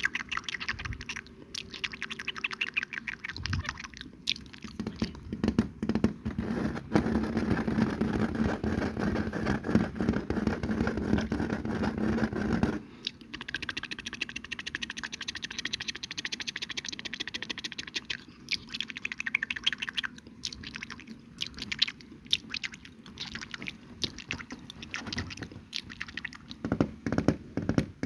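Close-miked ASMR mouth sounds: dense runs of fine, rapid wet clicks. A louder, rougher stretch runs for about six seconds in the middle and stops suddenly.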